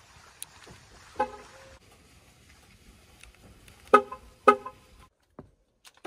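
Mercedes-Benz sedan's horn giving short lock-confirmation chirps from the key fob: one softer chirp about a second in, then two loud chirps about half a second apart.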